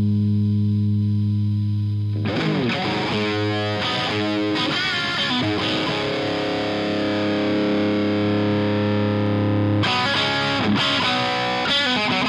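Distorted electric guitar through an Omega Series Micro mini amplifier, coloured by a Greenback cabinet impulse and reverb. A held chord rings out for about two seconds, then a run of quickly picked notes, a long sustained chord, and more picked notes near the end.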